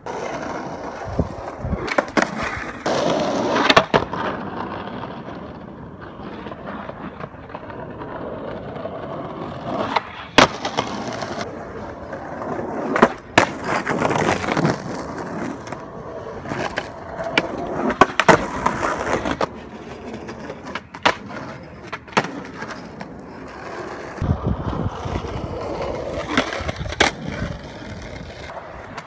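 Skateboard wheels rolling on pavement, the rumble rising and fading as the board passes, with several sharp clacks of the board's deck and tail hitting the ground.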